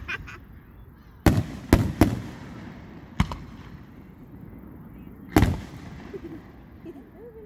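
Aerial fireworks shells bursting: three sharp bangs in quick succession a little over a second in, another about three seconds in, and a loud one at about five and a half seconds, each trailing off in a low rumble.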